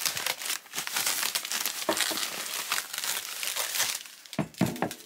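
Tissue paper crinkling and rustling as it is pulled off a small wrapped item, thinning out about four seconds in, with a few light knocks near the end.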